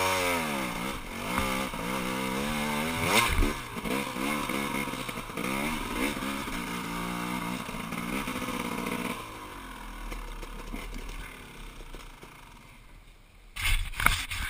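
KTM dirt bike engine being ridden, its pitch rising and falling again and again with throttle and gear changes. About nine seconds in, the engine note drops away and dies down. Near the end come a few sharp knocks and rattles.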